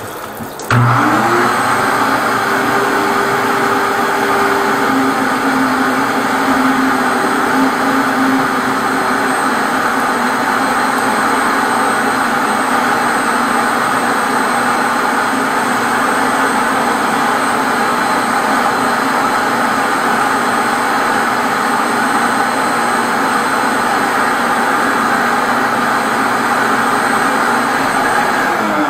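Suction vacuum machine switching on about a second in, spinning up with a rising whine and then running steadily as its hose draws on a clogged drain.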